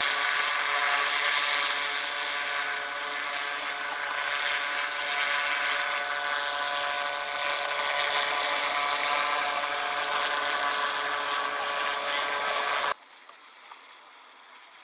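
Large radio-controlled scale model helicopter hovering, its motor and rotors giving a loud, steady whine that holds one pitch. The sound cuts off suddenly near the end.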